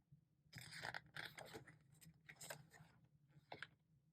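Faint rustling and soft scrapes of paper as photo book pages are handled and turned, in several short brushes.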